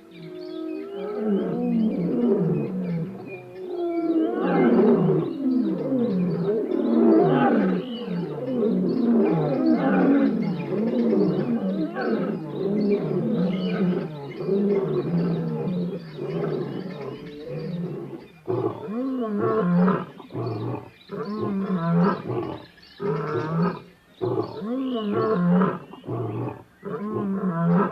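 Lion roaring: a long run of deep, overlapping roars, breaking after about two-thirds of the way into a series of short grunting calls roughly one a second.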